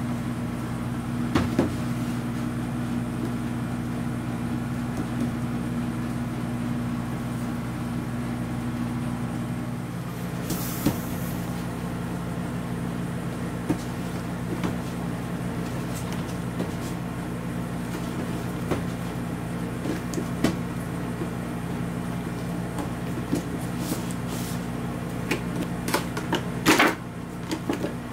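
A steady low mechanical hum, with a few scattered light knocks and clicks of figure packaging being handled, a brief rustle about eleven seconds in, and a quick cluster of louder handling knocks near the end.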